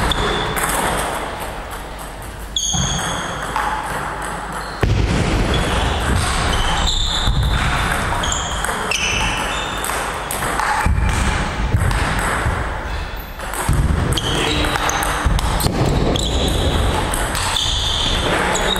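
Table tennis ball hit back and forth in a rally: many short, sharp clicks of the celluloid ball off the rubber-faced rackets and the table top, some with a brief high ring.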